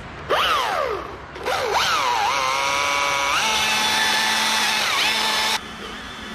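Chainsaw revved and cutting into the trunk: its engine pitch drops sharply twice as the chain bites into the wood, then holds high and steady through the cut. The saw drops back to a low idle near the end.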